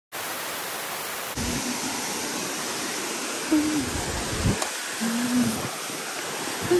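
Wind rushing over the microphone, a steady hiss with uneven low buffeting gusts, cutting in suddenly just after the start.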